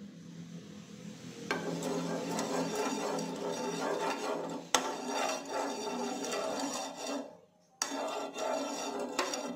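Steel ladle rubbing and scraping across a nonstick tawa as it spreads oil over the pan, starting about a second and a half in. There is a sharp clink of the ladle against the pan about halfway through and a short break near the end.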